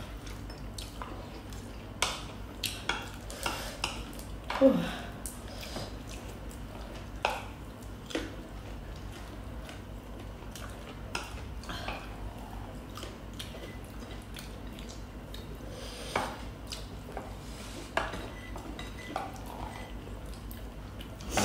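Metal spoon clinking and scraping against ceramic dinner plates while eating, in scattered taps, the loudest about five seconds in, over a steady low hum.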